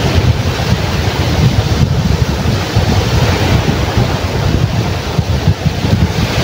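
Waves breaking and washing over a rocky shore, a steady rushing hiss, with strong wind buffeting the microphone and a heavy rumble underneath.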